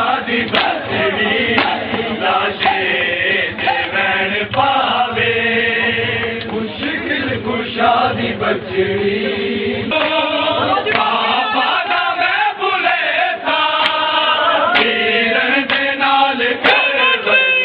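A crowd of men chanting a mourning lament (nauha) together, with sharp slaps of hands on bare chests (matam) cutting through the singing again and again.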